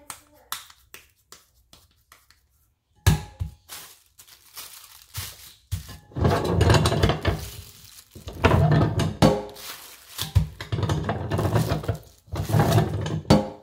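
Plastic sheet crinkling on a metal tortilla press in several loud stretches as a masa dough ball is laid on it and the press is worked, with a single sharp knock about three seconds in and a few light clicks before it.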